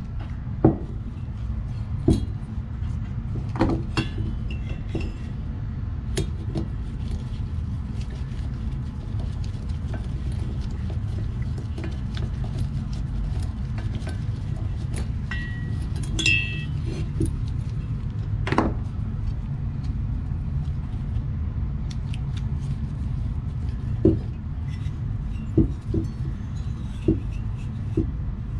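Scattered clicks, taps and knocks of hand tools and small metal engine parts being handled while a Husqvarna 350 chainsaw's top end is reassembled, over a steady low hum.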